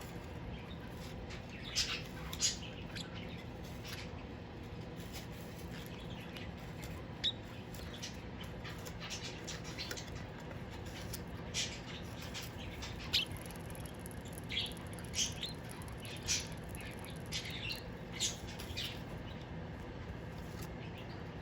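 Pet birds giving scattered short chirps and squawks, about a dozen brief calls spread across the stretch, over a steady low hum.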